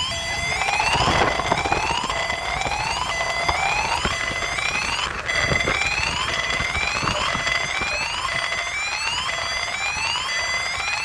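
Electronic siren sounding a fast repeating rising wail, each upward sweep resetting and starting again a little more than once a second, as in a siren test. A few dull thumps come through, about a second in and again about halfway.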